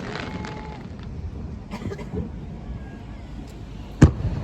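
Spectators' voices murmuring while waiting between fireworks, then a single loud firework burst booms about four seconds in.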